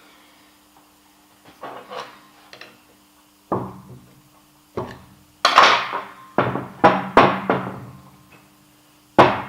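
Hammer blows on a lathe tailstock part, about ten sharp knocks of uneven strength with a short metallic ring after some. The part is being knocked back and forth to free it. A faint steady hum runs underneath.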